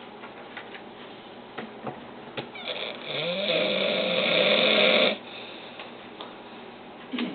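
A man snoring in his sleep: one loud, rough snore about two and a half seconds long, starting about two and a half seconds in, its pitch rising at the start. A short snort follows near the end.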